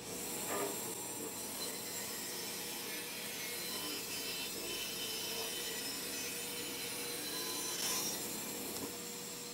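A small homemade band saw runs with a steady motor hum while its blade cuts continuously through stacked plywood, rounding the boards' ends.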